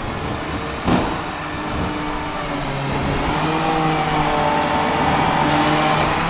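Tram running on its rails: a sharp knock about a second in, then the whine of its electric traction motors rising slowly in pitch as it gathers speed over the rumble of the wheels.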